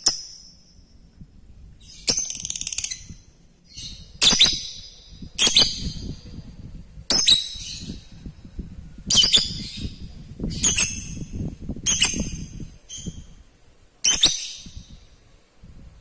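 Lovebird giving about ten sharp, shrill calls at irregular intervals, with a rapid chattering trill (the 'ngekek') about two seconds in. A low rumble runs underneath through the middle stretch.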